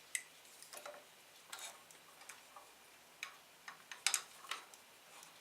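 Steel spanners clicking and tapping against a pair of locked nuts on a threaded shaft, a string of irregular light metallic clicks with the loudest cluster about four seconds in.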